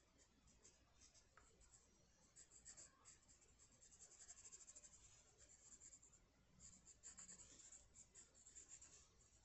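Faint scratching of a drawing tool on paper in quick, repeated sketching strokes.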